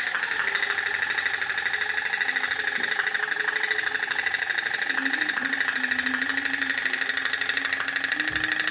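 Tin pop-pop toy boat putt-putting, a fast, even pulsing from its flame-heated boiler that runs without a break.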